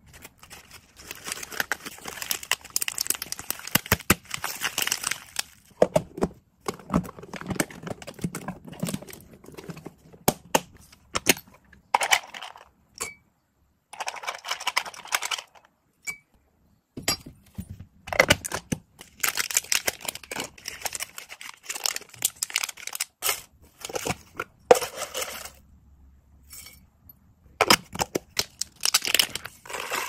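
Thin plastic food bags crinkling and dried hay rustling as they are handled, with sharp clicks and knocks of a plastic storage box and its lid. The handling comes in bursts of a few seconds with short pauses between.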